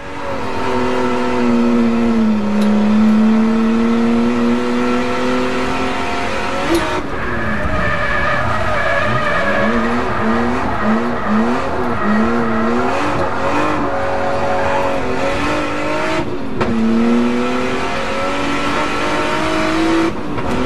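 Nissan R32 Skyline's turbocharged RB20 straight-six, running hard while drifting in the wet. The revs hold high at first, then swing rapidly up and down as the throttle is worked through a slide. About two-thirds of the way through the revs drop sharply and then build again.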